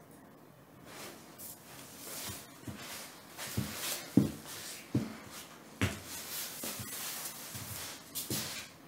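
A person shifting and stepping away across the floor near the microphone: rustling with a run of soft, irregular thumps, the loudest about four seconds in.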